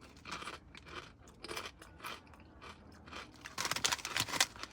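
A person chewing crunchy kettle-cooked potato chips with the mouth close to the microphone: irregular crisp crunches, growing denser and louder near the end.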